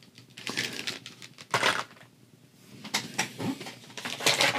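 Plastic lure packaging being handled: irregular crinkling and clicking, with a louder rustle about a second and a half in and a quick run of clicks near the end.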